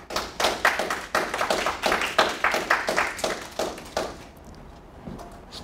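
Audience applauding, many hands clapping steadily for about four seconds, then thinning out and dying away.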